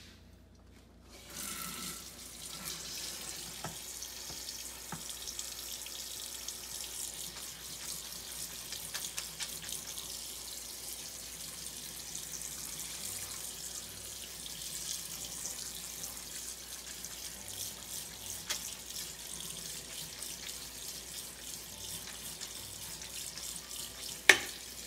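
Cold water spraying from a kitchen faucet onto cooked pasta in a stainless steel colander, a steady hiss that starts about a second in. Near the end comes one sharp knock, the loudest sound.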